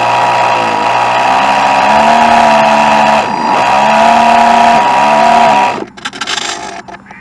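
Radio-controlled boat's motor running with a whine, its pitch rising and falling several times as the throttle changes. Near the end it cuts off abruptly, leaving only brief sputters.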